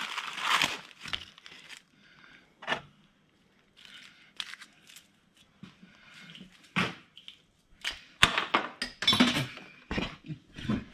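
Scattered metallic clicks, knocks and rustling from hand tools and parts being handled during engine reassembly. A louder run of clatter comes near the end, as a part or tool is dropped.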